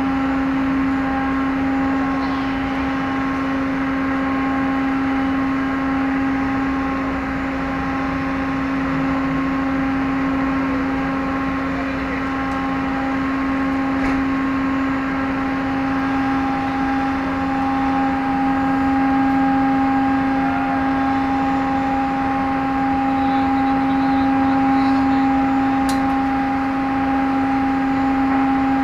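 Passenger ferry's engines and machinery droning as a steady, unbroken hum with one constant low tone.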